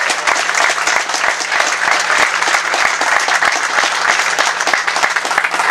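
A crowd applauding: dense, steady hand clapping.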